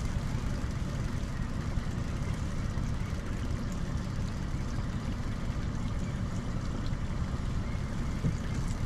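Boat motor running steadily at trolling speed, a low even hum under a haze of water and air noise, with one brief knock near the end.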